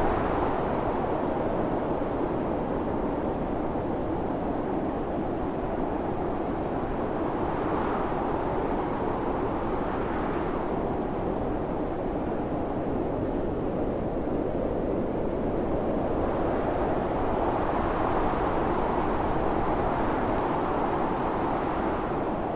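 Blizzard wind blowing steadily, with slow gusts that swell and fade every few seconds.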